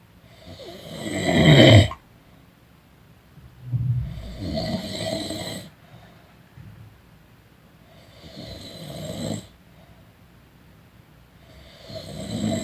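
A person snoring during a nap: four snores, about one every four seconds, each swelling and then stopping abruptly. The first is the loudest.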